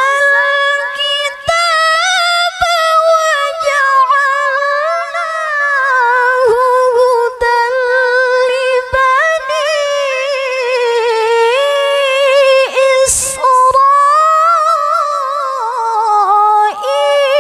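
A woman qori reciting the Quran in the melodic tilawah style into a handheld microphone: long held, ornamented phrases whose pitch glides and quavers, with one brief break for breath about three-quarters through.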